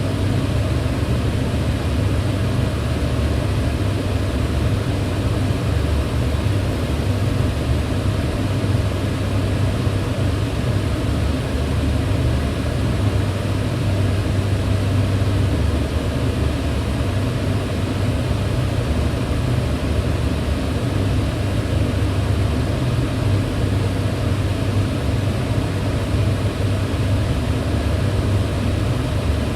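Kitchen range hood fan running steadily: an even, unchanging whoosh of air with a deep low hum.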